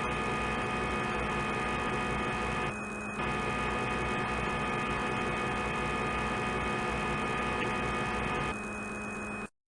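CNC lathe running a turning cycle, most likely the machine sound of CNC simulation software: a steady whine of several fixed tones over a hum. It dips briefly about three seconds in, drops again near the end, then cuts off abruptly.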